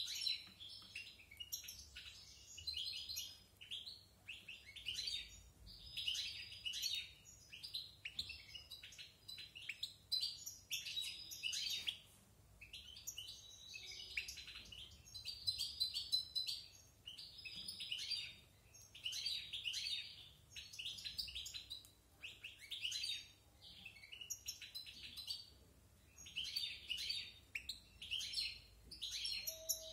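European goldfinch singing its varied twittering song: rapid phrases of high chirps and trills, each a second or two long with short pauses between, going on without a break. A yearling male going over its song.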